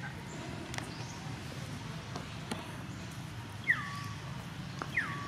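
Two short animal calls, one near the end and one just before it, each dropping quickly in pitch and then holding a steady note. A sharp click marks the start of the first. A few fainter clicks sound over a steady low background hiss.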